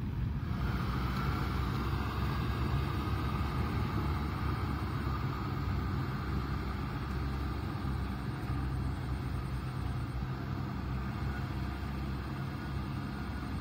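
Kubota tractors' diesel engines running steadily as they pull rotary tillers through a wet rice paddy: a low, even rumble.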